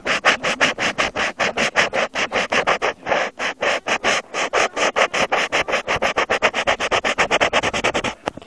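Quick back-and-forth scratching strokes on paper, about six or seven a second, keeping an even rhythm and stopping just before the end.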